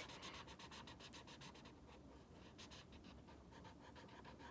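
Faint scratching of a felt-tip marker colouring on paper, in quick repeated strokes.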